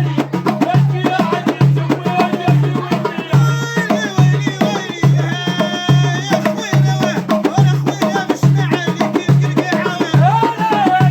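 Moroccan aita folk music played by a band: a steady low drum beat a little over once a second under busy hand percussion, with melodic instrument lines over it.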